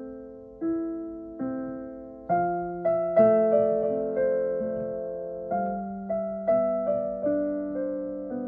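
Solo piano playing a slow, minimal improvised melody, each note struck and left to ring and fade. About two seconds in, fuller, louder chords come in, and the playing eases off again toward the end.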